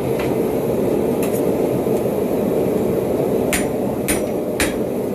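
Hand hammer blows on hot steel on a Hay Budden anvil: a few scattered strikes, then three about half a second apart near the end, several with a bright anvil ring. Under the strikes runs a steady rushing noise.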